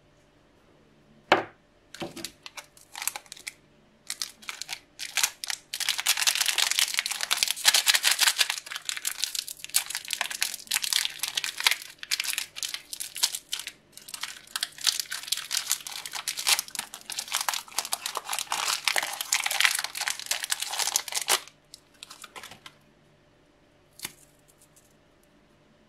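Plastic wrapper of a Nesquik chocolate bar being torn open and crinkled by hand: a few crackles at first, then a long stretch of continuous crinkling, which stops suddenly. Near the end comes one short snap as the chocolate-covered wafer bar is broken in two.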